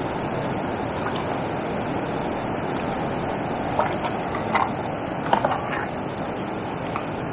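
Steady rushing of water pouring over a river weir, mixed with wind on the microphone, with a few short clicks about halfway through.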